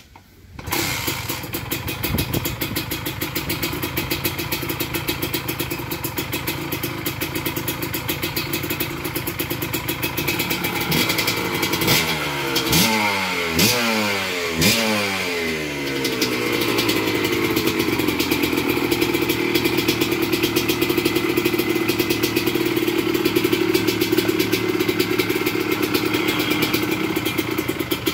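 Kawasaki KMX 125's two-stroke single-cylinder engine started from cold on a freshly fitted OKO 28 mm flatslide carburetor: it catches under a second in and runs. About halfway through the throttle is blipped four or five times, rising and falling in pitch, and then it settles into a steady idle.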